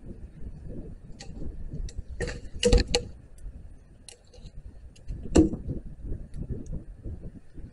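Someone moving about and handling wood among branches on the forest floor: irregular knocks, cracks and twig snaps, with a cluster of sharp knocks between two and three seconds in and another about five and a half seconds in.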